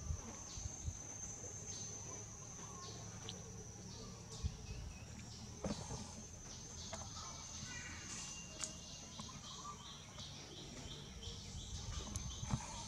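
Steady high-pitched insect drone, with a run of short chirping calls, about three a second, in the second half. A few brief taps and rustles stand out above it.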